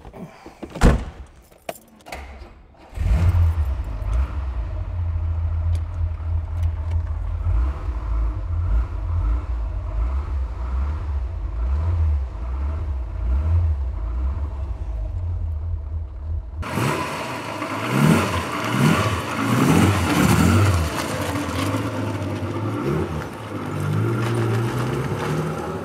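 Maserati Mistral's straight-six engine starting about three seconds in after a few clicks and a thunk, then running steadily at idle. About two-thirds of the way through, it is heard revving up and down as the car drives.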